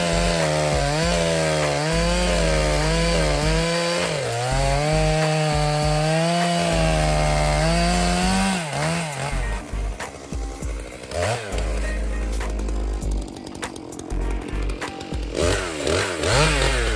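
Two-stroke chainsaw cutting wood, the engine note wavering up and down as the chain bites and frees. About eight seconds in, the cutting gives way to more broken running, with quick revs up and down. Background music plays underneath.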